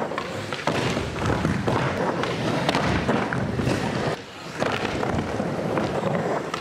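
Skateboard wheels rolling over a wooden ramp, with repeated knocks and clatter of the board and a fall partway through.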